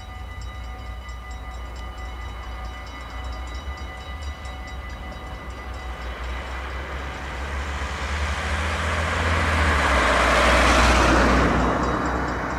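Low, steady rumble of DB Schenker class 6400/6500 diesel locomotives running light as they approach, with a rushing noise that swells to its loudest about ten seconds in and then fades.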